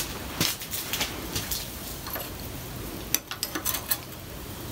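Light metallic clicks and taps as a thin copper strip is handled and fitted around a small metal wheel on a steel workbench: a few scattered clicks, then a quick cluster a little past three seconds in.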